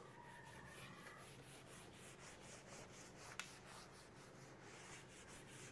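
Faint rubbing of a hand-held eraser wiped in quick repeated strokes across a whiteboard, clearing marker writing. A single short click about three and a half seconds in.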